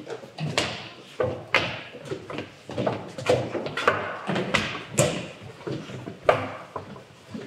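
A series of irregular knocks and bumps, roughly one or two a second, the loudest about six seconds in.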